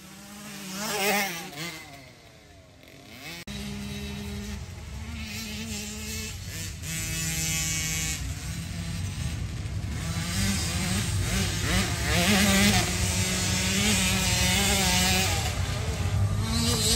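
Small two-stroke peewee dirt bikes racing: one engine revs and fades away about a second in, then a steady low engine drone runs on, with revs rising and falling over it as bikes accelerate across the course.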